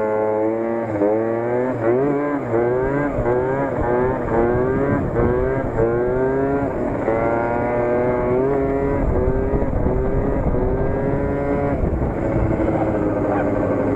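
Keeway Hurricane scooter's two-stroke engine, fitted with a Stage6 Streetrace cylinder kit and a Leo Vince ZX exhaust, revved in quick repeated throttle blips, its pitch climbing again and again. After about seven seconds the revs rise and fall more slowly.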